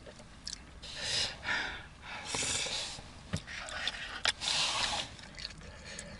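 A person breathing in and out sharply and noisily through the mouth in short hissing gasps, reacting to the burn of very spicy tteokbokki. Two small sharp clicks come in the middle.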